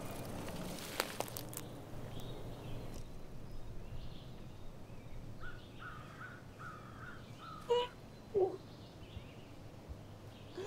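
Animal calls over a low, steady woodland background: a run of short calls in the middle and two louder ones about eight seconds in, after two sharp cracks about a second in.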